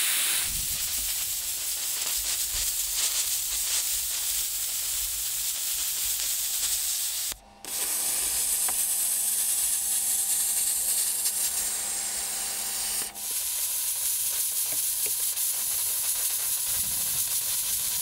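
Plasma cutter cutting through a Volkswagen Transporter van's steel side panel: the steady, loud hiss of the cutting arc, broken off briefly twice. A faint steady hum runs under the middle stretch.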